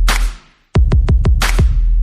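Electronic intro music with a deep bass and a drum-machine beat. It drops out briefly about half a second in, then the beat starts again.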